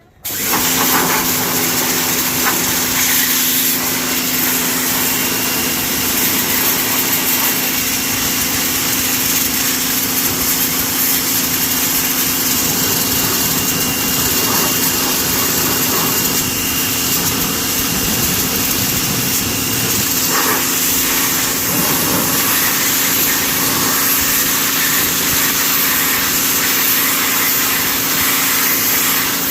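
Pressure washer kicking in suddenly and then running steadily: a constant motor hum under a loud hiss.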